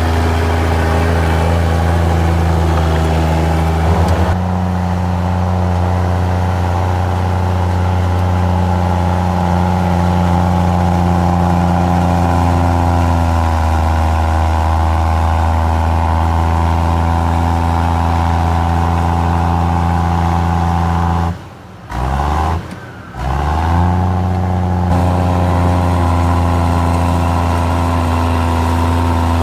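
Komatsu D53E crawler bulldozer's diesel engine running steadily while the dozer pushes rock and soil, its pitch shifting a little. The sound briefly cuts out twice about three quarters of the way through.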